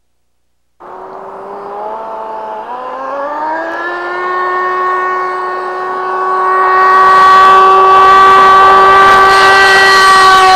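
Miniature gas turbine engine of a model jet aircraft whining. The sound starts suddenly about a second in, its pitch glides up about two seconds in and then holds steady. A rushing noise grows loud from about six seconds in as the model takes off.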